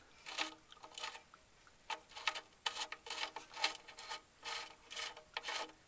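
Oil drain plug being threaded back into the oil pan by gloved hand: a string of short, irregular clicks and rubbing scrapes.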